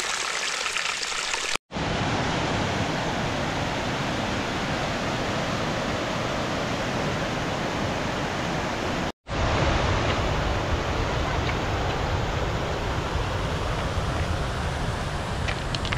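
A steady, even rush of water noise, broken twice by abrupt cuts to silence, about a second and a half in and about nine seconds in; after each break it returns fuller and deeper.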